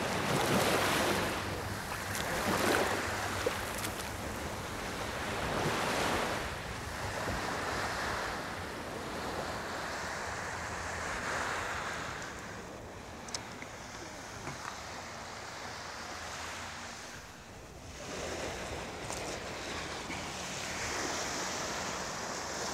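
Small waves breaking and washing up onto a sand beach, the surf swelling and fading every few seconds, with some wind on the microphone.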